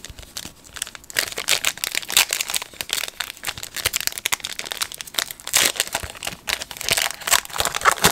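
Foil wrapper of a 2020 Panini Chronicles baseball card pack being crinkled and torn open by hand: a dense, irregular crackling rustle of the foil.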